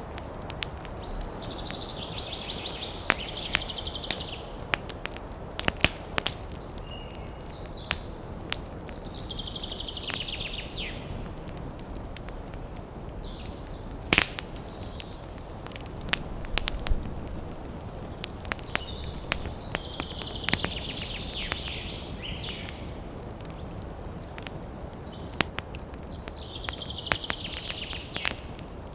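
Wood campfire crackling, with scattered sharp pops and snaps over a steady hiss. Four times, a high pulsed trilling call of some animal sounds for about two seconds.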